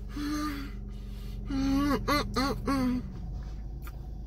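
A man making wordless, tuneful 'mmm' sounds of enjoyment while eating a biscuit: one short held note, then a run of short held notes about a second and a half in. A steady low hum runs underneath.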